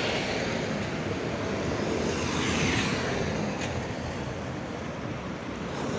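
Traffic passing close by: a panel van's engine and tyres as it drives past, then a car, a steady road noise that swells a little about halfway through.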